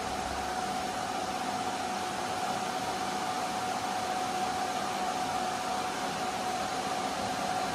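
Steady whoosh of cooling fans with a faint steady whine, from a 3.5 kW RF amplifier running in AM mode.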